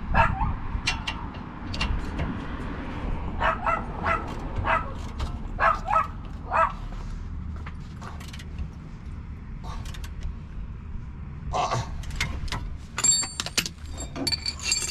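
A dog barking in short bursts, about five barks in quick succession a few seconds in and more later, over a steady low rumble; near the end, metal hand tools clink with a bright ring.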